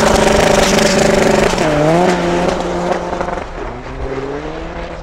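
A diesel VW Golf Mk2 and a second car accelerating flat out off a drag-race start line. The engine note climbs, dips at a gear change about one and a half seconds in, climbs again, shifts once more near three and a half seconds, and grows fainter as the cars pull away.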